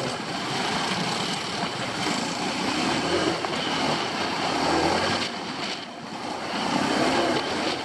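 Enduro motorcycle engine running while riding, its revs rising and falling several times.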